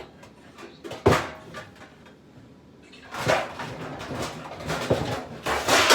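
Kitchenware being handled: a sharp knock about a second in, then a few seconds of scraping and rustling.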